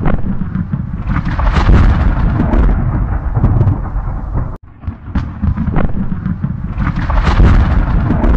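Explosion sound effect of a meteor impact: a loud, deep rumbling blast with crackles. It cuts off abruptly about four and a half seconds in, and the same blast starts over.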